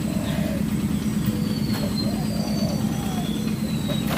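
A motor drones steadily and low with a constant hum. Over it, birds call several times with arching, cooing calls and faint high whistles.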